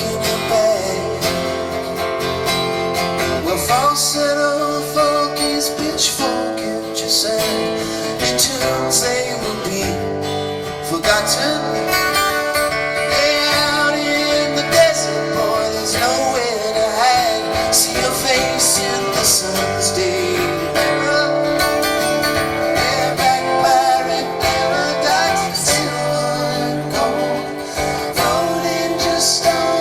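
Live band playing a rock song led by guitars, in a stretch without clear singing.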